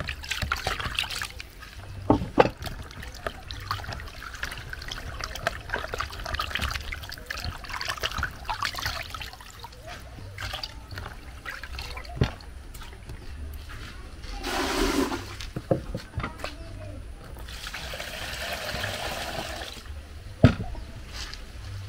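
Water running and splashing as a cooking pot is washed, with a few short knocks of the pot along the way.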